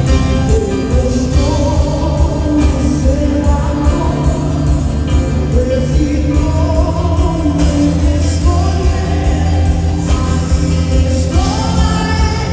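Gospel song performed by a band: a voice singing a wavering melody over strong bass and a steady drum beat.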